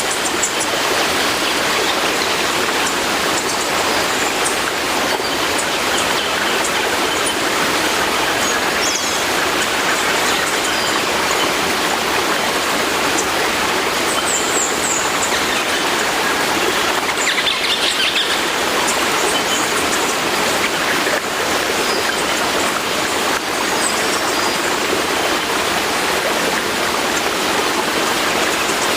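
Sea water rushing, a steady, even wash with no separate wave breaks standing out. A few faint high chirps come through about halfway through.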